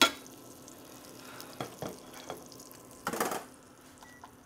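Ceramic plates set down on a stainless-steel counter: one sharp clack, a few lighter knocks and a short scrape about three seconds in, over faint sizzling from a stainless skillet of garlic butter.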